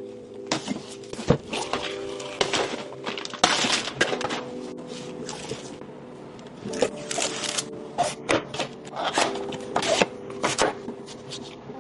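Unboxing handling of PC component packaging: irregular clicks, taps, scrapes and rustles of cardboard and plastic, with a few sharper knocks, over steady background music.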